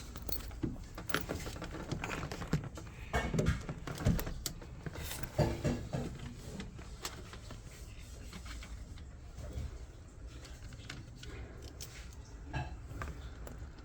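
Scattered clicks, light clinks and small knocks of hard objects being handled, busiest in the first half and sparser after.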